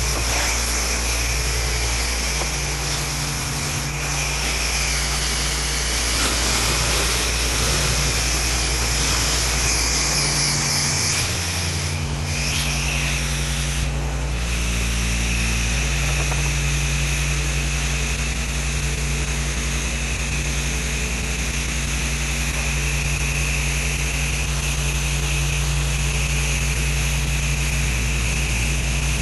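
A pressure washer's engine running steadily under the hiss of the water spray, its note shifting a few times in the first half.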